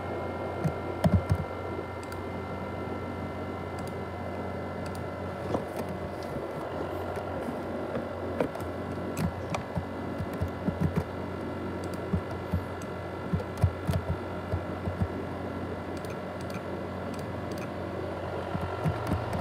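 ASUS X543UA laptop's cooling fan running loud and steady with a whine, a sound likened to a jet engine, with scattered sharp clicks over it.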